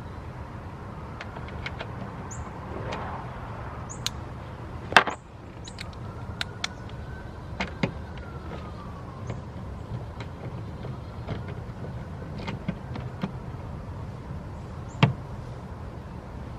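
Scattered clicks and knocks of hand work on a car's interior door panel, with two sharper knocks, one about five seconds in and one near the end. A faint siren rises and falls in the background over a steady low hum.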